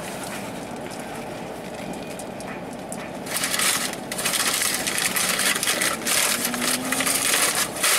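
Paper fast-food bag and wrapper crinkling and rustling in a dense run of crackles from about three seconds in, over a steady low hum in the car cabin.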